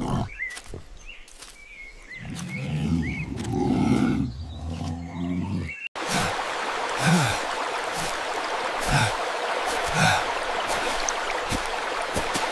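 A low, drawn-out growling rumble, then a sudden cut about halfway through to the steady rushing of a forest stream, with a few soft thuds over it.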